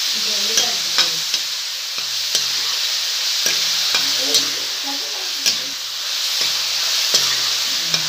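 Chopped onions, green chillies and tomatoes sizzling in mustard oil in a kadhai over a low flame, while a metal spoon stirs them, clicking and scraping against the pan at irregular moments through the steady hiss.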